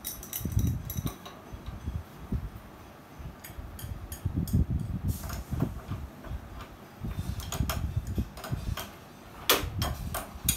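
Irregular clicks, taps and low knocks from hands working on the plastic casing and pipe connections of a Mitsubishi Electric split air conditioner's wall-mounted indoor unit during installation. The sharpest click comes near the end.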